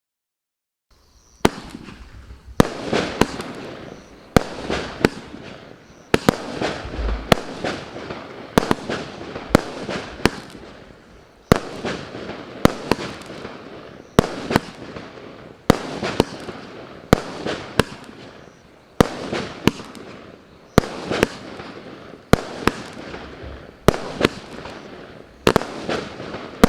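Maxsem M0851 firework firing a long series of shots, starting about a second in: about eighteen sharp bangs spaced one to two seconds apart, each followed by a fading rush of noise.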